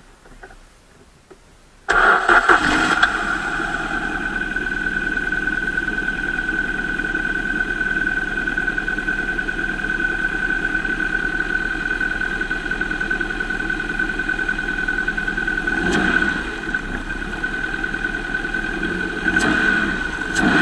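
2005 Volvo S40 engine cranking and starting about two seconds in, then idling steadily with a high steady whine over the engine note. It briefly swells once partway through and again near the end.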